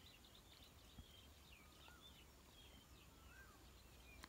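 Near silence with faint bird chirps: several short rising-and-falling calls, plus a small click about a second in.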